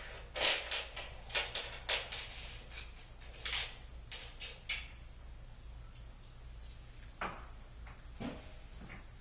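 Knocks and clatter of day-bed frame parts being handled and fitted during assembly: a quick run of knocks and clicks for the first five seconds or so, then a couple of single knocks near the end.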